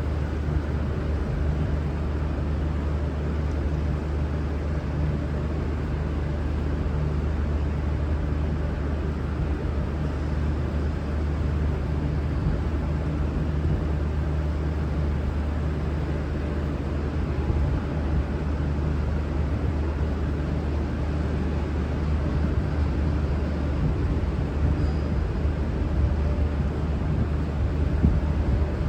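V/Line VLocity diesel multiple unit's engines idling, a steady low drone with no change in pitch.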